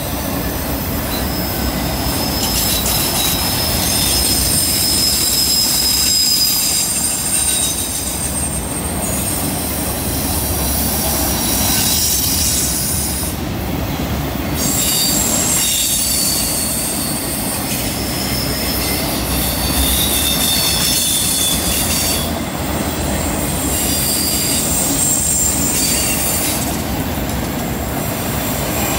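Freight train of multilevel autorack cars rolling past on a curve: steel wheels squeal against the rail in thin high tones that come and go, over a steady rumble of wheels on track.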